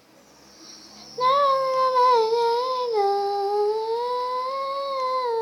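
A girl humming one long held note that starts about a second in, its pitch dipping slightly and rising again.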